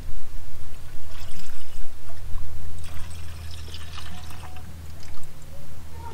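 Coolant pouring from a plastic jug into a car's coolant expansion tank. The pour is heaviest a few seconds in and thins to a trickle as the jug empties near the end, over a steady low hum.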